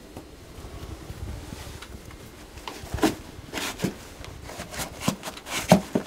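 Black leather dress shoes being put on at a tiled entryway: from about halfway in, a handful of short knocks and scuffs of the shoes against the tile floor, the loudest near the end.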